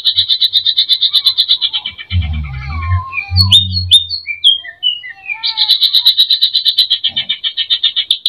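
Greater green leafbird (cucak ijo) singing its mimicked song: a fast buzzy trill of about ten pulses a second, broken about two seconds in by a run of varied whistled upward and downward slurs. The trill starts again about five and a half seconds in. A few low thumps sound in the middle.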